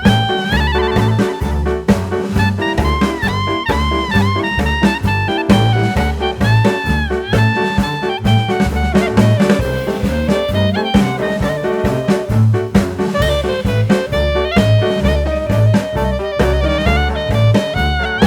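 Jazz music: horns playing a gliding melody over a pulsing bass line and a drum kit.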